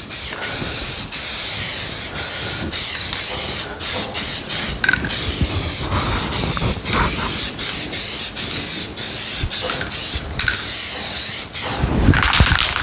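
Aerosol can of satin black trim paint spraying a light mist, a loud hiss that stops and restarts many times in short breaks.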